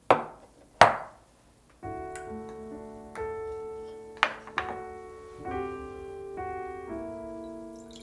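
Two sharp knocks of dishes being set down on a wooden table. Soft piano background music starts about two seconds in, and two more quick knocks of tableware come about four seconds in.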